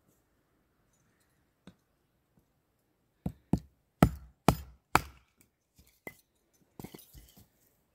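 Splitting a short log for firewood by batoning: a wooden baton strikes the back of a blade set in the log, a run of five sharp wooden knocks about two a second. Near the end the split pieces clatter down off the chopping stump.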